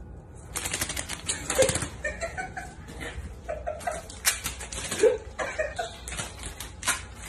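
Paper towel stuck to a cat's front paws scuffing and crinkling against a tile floor as the cat walks. A rapid, irregular run of scratchy rustles starts about half a second in.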